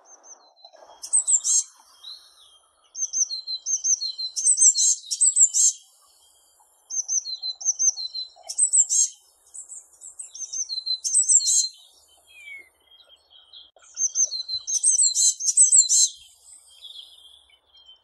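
Eurasian blue tit singing: high, thin, quickly repeated notes in short phrases, coming in about four bursts with brief pauses between them.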